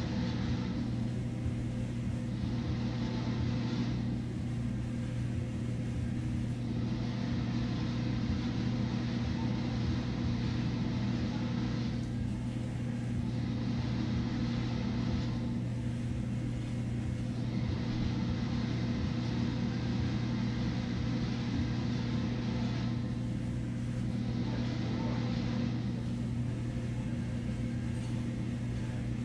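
A steady low machine hum of one constant pitch with overtones, under a soft hiss that swells and fades every few seconds.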